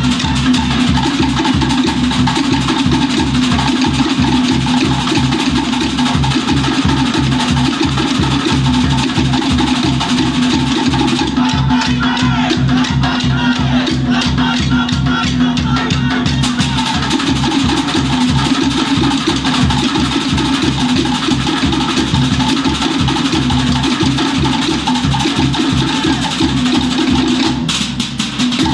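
Cook Islands drum ensemble playing a fast, driving dance rhythm: wooden slit log drums (pate) struck rapidly with sticks over a deep skin drum (pa'u) beating time, the strokes coming steady and unbroken.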